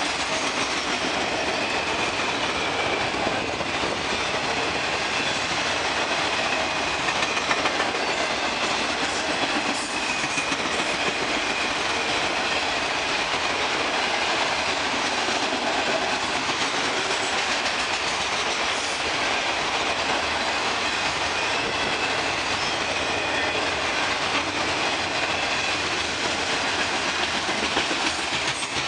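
Freight train of multilevel autorack cars rolling past at a steady speed: steel wheels clattering on the rails, with a faint high wheel squeal at times.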